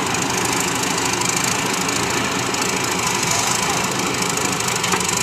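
Combine harvester's diesel engine running steadily.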